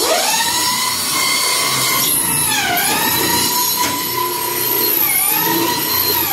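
Handheld electric drill running steadily with a high whine whose pitch sags under load and recovers about every two to three seconds, as it works into fiber cement ceiling board and metal furring.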